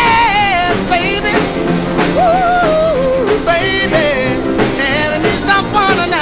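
Rock and roll music with a steady beat and a lead line that bends up and down.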